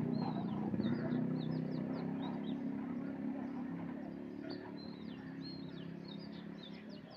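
Small birds chirping in quick, short high notes, over a low rumble that fades away.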